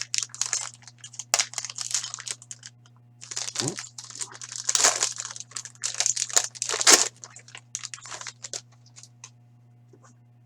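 Plastic wrapper crinkling and tearing as a hockey card box or pack is opened by hand, in irregular bursts of crackling with short pauses, dying away about nine seconds in.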